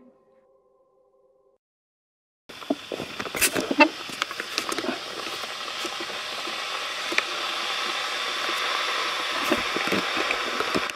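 Almost silent for about two and a half seconds, then outdoor night ambience: a steady hiss with scattered ticks and knocks.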